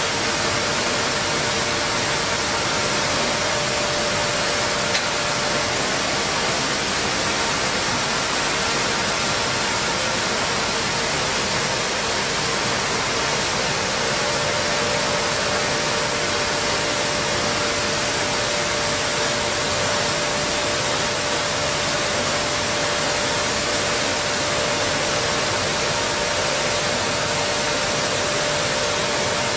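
Steady machinery noise of a running stone flour mill plant: an even hiss with a few faint steady hums, with no rhythm and no breaks.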